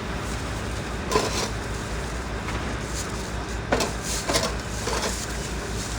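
Steady low background hum with a few brief snatches of voices and light handling knocks.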